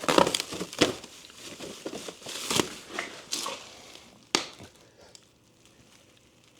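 Packaging on a speaker pallet being handled: rustling and crinkling with scattered knocks, a sharp click about four seconds in, then quiet.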